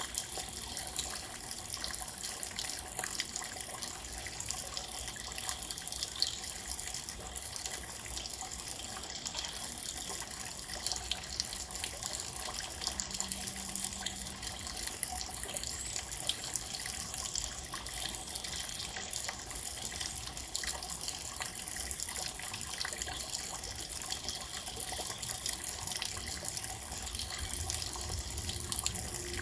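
Steady rain falling, an even hiss with many small drop impacts throughout.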